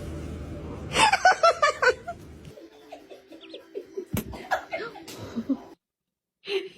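A person laughing in a quick run of short bursts about a second in, followed by scattered shorter laughs and chuckles.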